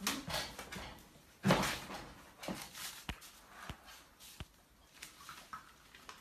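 Labrador puppies moving about and playing, with a short scuffling burst about a second and a half in and three sharp knocks a little over a second apart near the middle.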